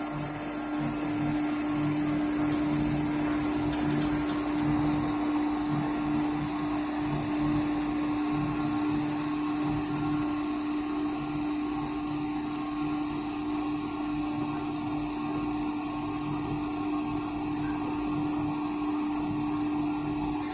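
Homemade CNC router's spindle running at steady speed with a constant high-pitched whine while it cuts. The sound cuts off suddenly at the end.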